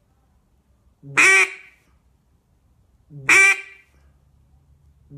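Duck call blown in single hen mallard quacks, evenly paced about two seconds apart: two full quacks, with a third beginning at the very end. This is the slow, confident hen quack, counted out between notes; quacks that come too fast would signal an alarmed hen.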